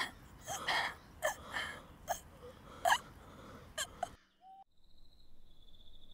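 A woman's short, sharp gasps and whimpers, about eight in all, some falling in pitch. They cut off abruptly about four seconds in, and crickets chirp steadily after that.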